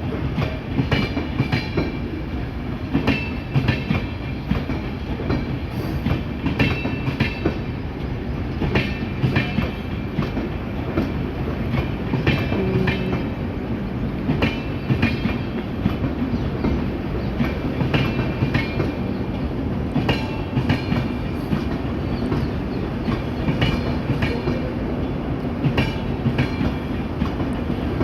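Express passenger train running at speed, a steady rumble of wheels on rail with repeated clickety-clack as the wheels pass over rail joints.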